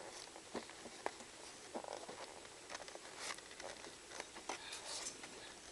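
Worn cardboard toy box being opened by hand: scattered soft rustles, scrapes and light taps of the cardboard flaps and contents.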